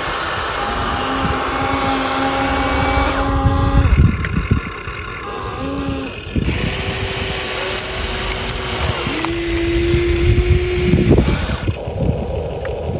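Electric motors and gearboxes of radio-controlled excavator and truck models whining, with the pitch and hiss stepping up and down several times as the motors start, stop and change speed.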